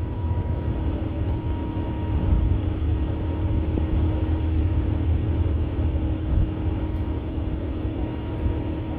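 Steady cabin drone of a four-engine Airbus A380 climbing out after takeoff: engine and airflow noise heavy in deep rumble, with a faint steady hum tone over it.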